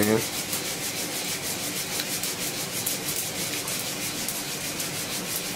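Roasting coffee beans rattling and sliding inside a hand-held mesh roaster as it is shaken back and forth over a gas burner, a steady swishing in a quick, even rhythm.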